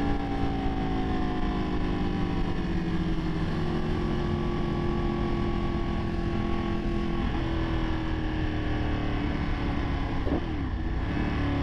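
Ducati 959 Panigale's Superquadro L-twin engine running under way, its pitch sinking slowly as the bike eases off. There are steps in pitch about seven and ten seconds in, over a steady rush of wind.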